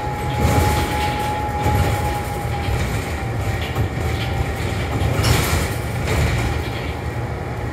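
Interior of a New Flyer XD40 city bus on the move: a steady low engine and road rumble, with a thin drivetrain whine that fades out about four and a half seconds in. A short hiss comes about five seconds in.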